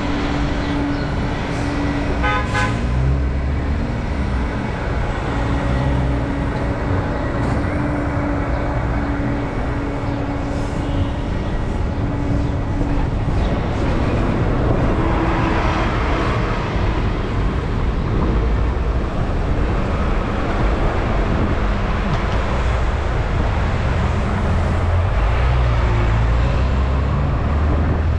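Road traffic noise heard from a moving bicycle: a loud, continuous wash of passing vehicles, with a steady hum through roughly the first dozen seconds.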